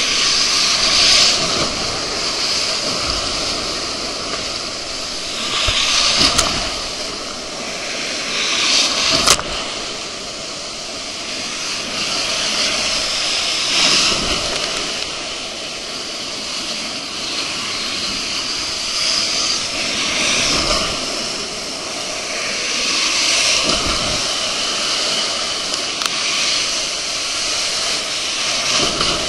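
Water rushing and spraying around a raft riding a water-coaster slide, swelling loudly every few seconds as the raft is pushed through the jet-powered climbs. A sharp knock about nine seconds in.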